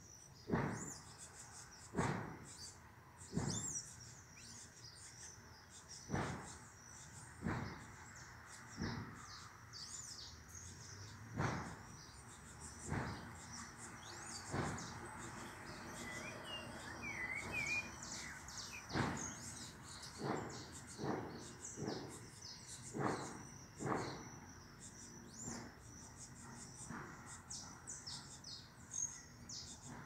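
Birds chirping continuously in high, busy calls, with a short whistled phrase about halfway through. Loud, short, sharp sounds come every second or two and stand out above the chirping.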